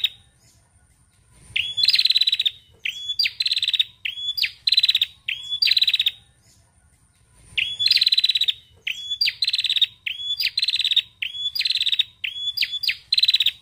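Female ashy tailorbird calling. Short, high, buzzy phrases, each opening with an upward flick, come in quick runs of about two a second. There are two long bouts with a pause of about a second and a half between them.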